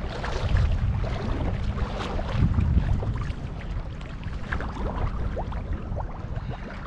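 Lake water splashing and sloshing close around a camera held at the surface as a person wades through shallow water, with many small droplet splashes over a steady low rumble.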